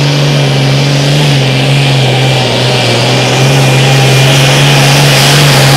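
Farmall hot farm pulling tractor's diesel engine running at full throttle under load as it drags the weight-transfer sled, steady in pitch with a slight dip about two seconds in.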